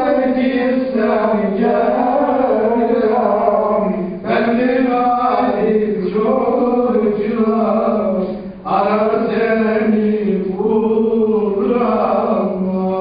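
Male voice singing a slow melody in long, wavering held notes, with two short breaks for breath.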